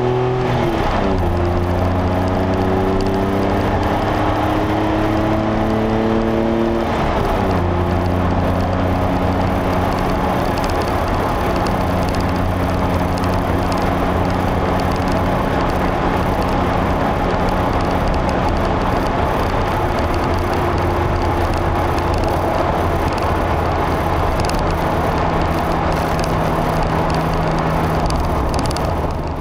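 DeLorean DMC-12's 2.85-litre PRV V6 through a stainless free-flow exhaust, heard from inside the cabin. The revs rise and then drop at gear changes, about a second in and again about seven seconds in. After that it cruises at steady revs under a constant hiss of road and wind noise.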